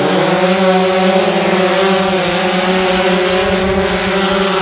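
DJI Phantom 4 quadcopter's four propellers and brushless motors whirring close by in a low hover, a loud, steady hum that drops slightly in pitch just after the start.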